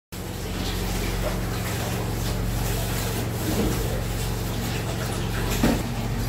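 A steady low hum with a hiss over it, cutting in abruptly at the start.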